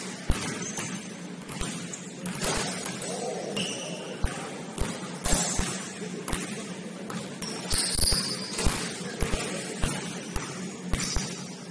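A basketball bouncing on a hardwood gym floor, irregular thuds every second or so, with brief high sneaker squeaks on the court.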